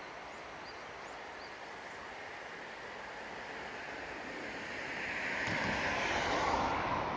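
Steady outdoor background noise, with a vehicle approaching and passing: the tyre and engine noise swells from about four seconds in, is loudest about six seconds in, and fades near the end.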